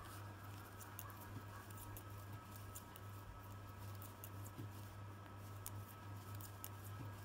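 Faint, irregular clicking and tapping of metal knitting needles as stitches are knitted by hand, over a steady low hum.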